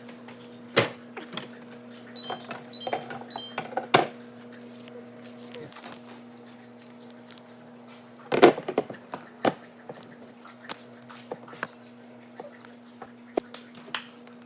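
Condiment bottles and jars knocking and clinking as they are handled and set down on fridge shelves, in irregular taps with a louder clatter about eight seconds in, over a steady low hum.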